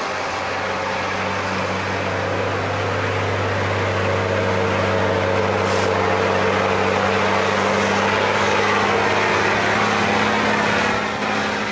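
Heavy Hover-Track truck's diesel engine running steadily under load as it hauls a sand-laden tipping trailer through soft sand, with a deep, even hum that grows louder as the truck comes close.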